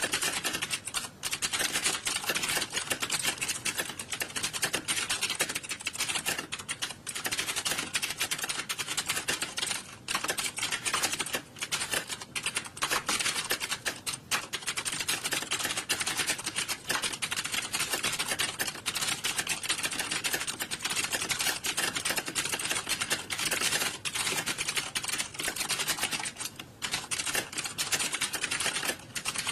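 Many computer keyboards being typed on at once: a dense, continuous clatter of overlapping key clicks, as in an exam hall full of candidates typing.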